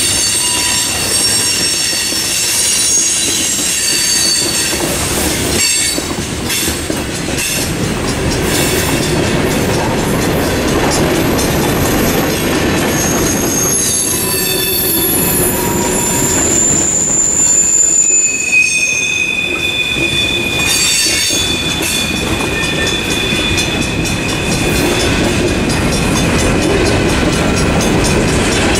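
Freight train cars, boxcars and covered hoppers, rolling past at close range: a steady loud rumble and clatter of steel wheels on rail. High-pitched wheel squeal comes and goes, strongest in the second half.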